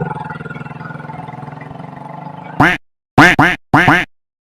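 A steady low hum, then about two and a half seconds in, four short quack-like comic sound-effect blips whose pitch bends up and down, each cut off into dead silence.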